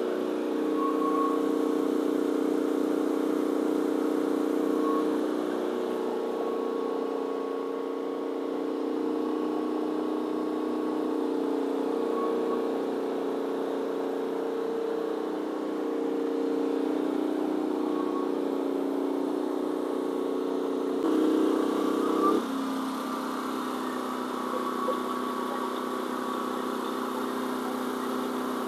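GenMax GM10500 inverter generator running steadily under a heavy load of about 8,000 watts. About three-quarters of the way through its engine note swells briefly, then drops and settles to a lower, steady speed as the load eases.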